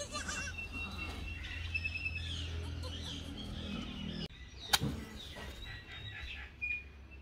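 Small birds chirping over a low steady hum that cuts off a little past halfway. Just after, a single sharp strike of a match on its matchbox, and a brief scrape near the end.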